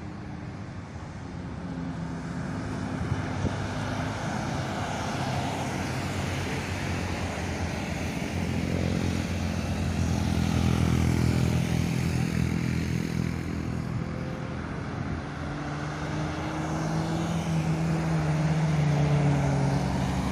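Large diesel bus engines running as buses approach and pass, a steady engine hum with road noise that grows louder, eases off a little about three-quarters of the way through, then builds again.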